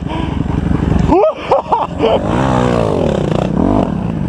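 Kawasaki 250 motocross bike engine under hard riding: the throttle is shut briefly about a second in, then the engine revs up sharply, and the revs rise and fall as the rider works the throttle.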